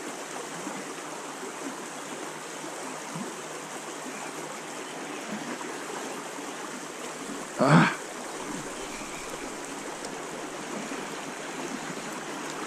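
Steady rush of a small creek's flowing water, with one brief voiced sound from a person a little past halfway.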